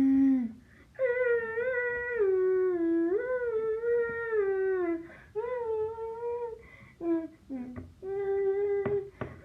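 A child's high voice humming a wordless tune in long, wavering notes, broken into several phrases. Two sharp clicks come near the end.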